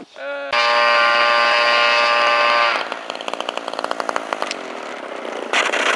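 A model airplane's small combustion engine runs at high revs with a steady, loud tone. About three seconds in it changes to a rougher running with a fast ticking.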